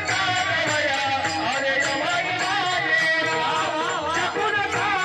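A singer's ornamented, wavering melody over a steady drone, with regular percussion strokes keeping time.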